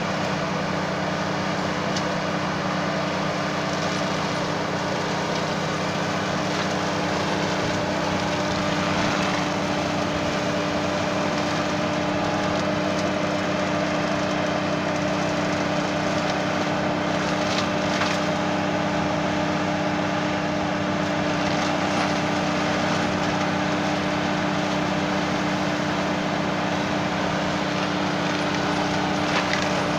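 Tractor engine and a rear-mounted Midiforst 225 forestry mulcher, driven off the power take-off, running steadily as the mulcher cuts through tall grass. It makes an even mechanical hum with a few steady tones, and there are a couple of sharp ticks, one a little past halfway and one near the end.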